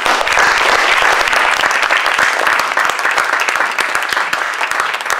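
Audience applauding, breaking out all at once and then going on steadily.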